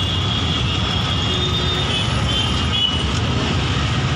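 Road traffic noise from within slow, dense traffic: a steady engine drone close by over the general rumble of surrounding vehicles.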